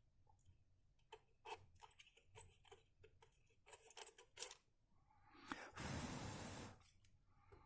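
Faint scattered clicks and taps of small metal power-strip parts being handled, then a hiss lasting about a second near the end.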